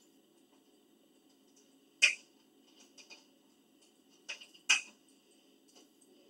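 A few short, sharp clicks: a loud one about two seconds in, two faint ones soon after, and a quick group of three near the end.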